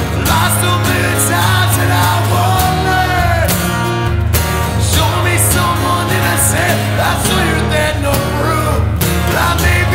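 Live acoustic rock song: a man singing over two strummed acoustic guitars.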